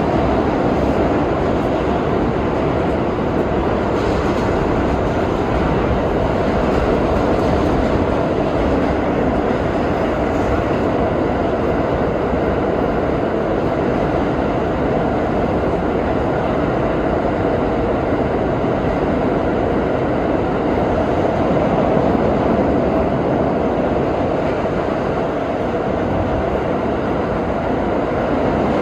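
R32 subway train running steadily between stations, with a constant loud noise of wheels on rail and running gear, heard from aboard the car.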